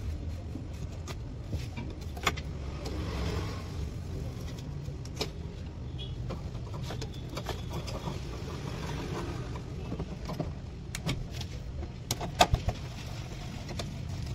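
Metal clicks and taps of a socket wrench and extension bar working the bolts of a scooter's clutch-side (CVT) cover, with a quick run of sharper clicks about twelve seconds in. A steady low hum sits underneath.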